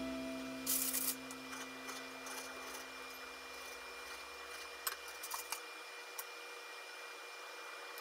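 Kitchen knife cutting tomatoes on a wooden cutting board while hands tuck bacon slices into the cuts. A short scraping rustle comes about a second in, then light taps and clicks. A fading note of background music dies away partway through.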